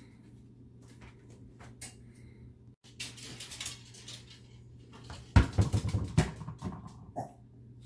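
A small dog's claws tapping on a hardwood floor as it moves about, with a burst of fast scrabbling clatter a little past halfway as it spins around.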